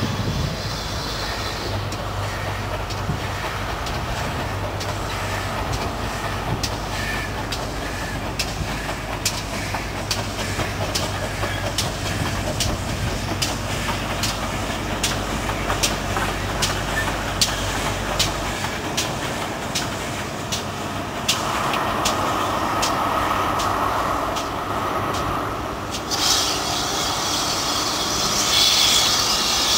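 Trains passing on the line: a steady low rumble with a regular clatter of about two beats a second. Near the end the rumble fades and gives way to a hissing sound.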